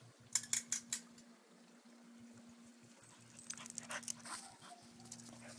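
Dog sounds: a quick run of about five sharp clicks in the first second, then a cluster of scuffling noise a few seconds in, over a steady low hum.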